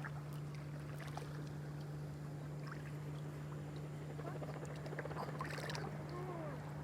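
A boat's outboard motor running steadily at a distance, a low, even drone. One angler takes it to be struggling, perhaps bottoming out in the shallow water.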